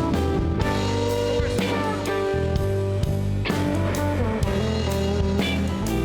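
Live rock band playing an instrumental passage: an electric guitar solo with bent, sliding notes over bass and a drum kit.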